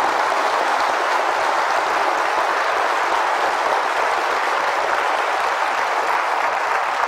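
Large audience applauding, a dense steady clapping that holds at one level throughout.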